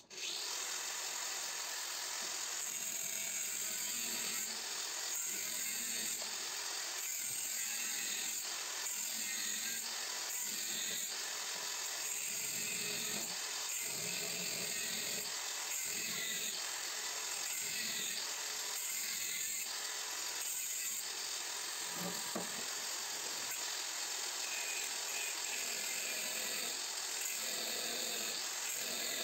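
Electric angle grinder switched on and cutting into a length of rectangular steel tube. It runs continuously, its sound swelling and easing as the disc bites into the steel and lets off.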